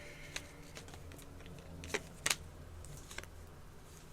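Tarot cards being handled on a table: a few light, sharp clicks and taps, the loudest about two seconds in, over a low steady hum.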